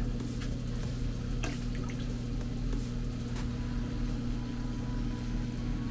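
Water dripping and sloshing faintly as a mesh fish net is dipped and moved in a stock tank pond, over a steady low hum.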